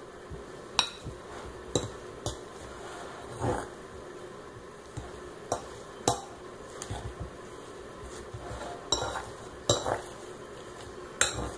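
A metal fork clinking and scraping against a bowl while breaking up firm, drained cheese curds, in a series of irregular sharp clinks.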